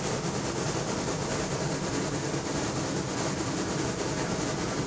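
Steady hiss from Shay No. 5, a Lima-built 1905 geared steam locomotive.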